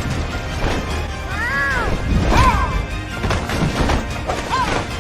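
Fight-scene soundtrack of an animation: background music with repeated hits and crashes, and several short calls that rise and fall in pitch, like cats meowing.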